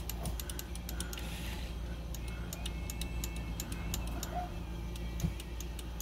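Light metallic ticking and clicking from a Smith Corona Galaxy 12 manual typewriter's ribbon selector linkage being moved by hand, in quick irregular clusters of small clicks, over a steady low hum.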